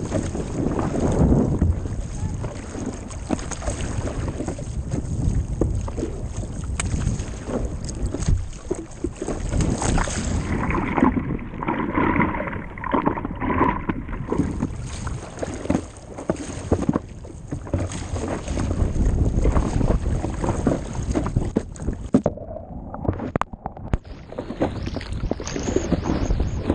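Water sloshing and splashing against a stand-up paddleboard's nose as it is paddled through chop, with wind rumbling on the camera's microphone. The sound turns muffled twice, for a few seconds about eleven seconds in and again a little after twenty seconds.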